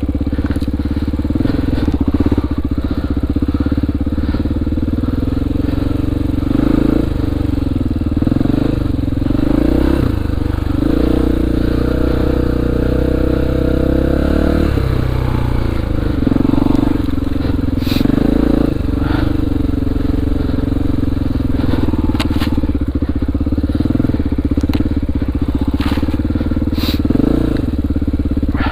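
Honda XR400R's single-cylinder four-stroke engine running under load as the dirt bike is ridden off-road, the revs rising and falling with the throttle. A few sharp knocks come through in the second half.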